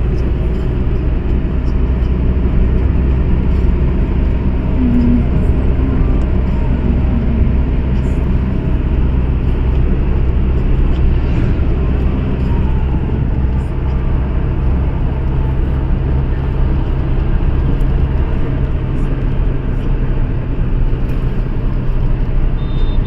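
Steady low rumble of road and engine noise inside a moving car's cabin, with no sudden events.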